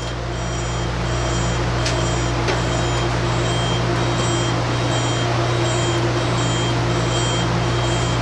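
Steady low electrical hum of a parked train car's onboard equipment, with a short electronic beep repeating at an even pace, roughly twice a second. Two light clicks are heard about two seconds in.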